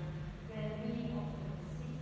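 An indistinct voice over a steady low hum.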